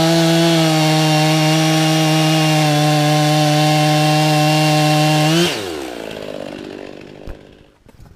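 Two-stroke chainsaw held at full throttle while cutting through a log, its pitch steady. About five seconds in, the pitch jumps briefly, then falls and fades as the throttle is released and the engine slows down. A few faint knocks near the end.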